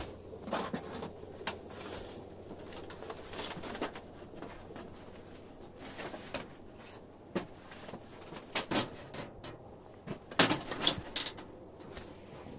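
Scattered metal clinks, knocks and scrapes as a stovepipe section is lowered onto and fitted into the collar of a titanium box tent stove, with handling rustles; the loudest knocks come about ten to eleven seconds in.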